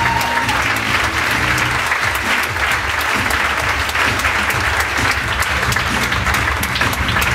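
Theater audience applauding steadily, a dense, even clatter of many hands clapping, with walk-on music playing underneath.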